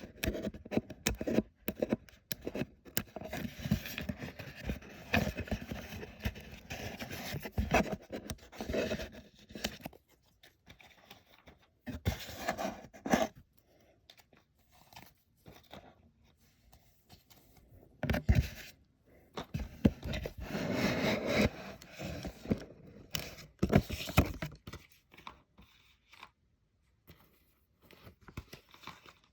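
Packaging being handled and opened by hand, in irregular bouts of noise: busy handling for about the first ten seconds, then scattered short bursts with quiet gaps between.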